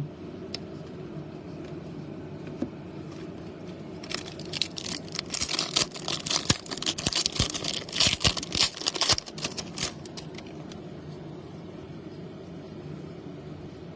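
A trading-card pack wrapper crinkling and tearing, a dense crackly run starting about four seconds in and lasting some six seconds, over a steady low hum.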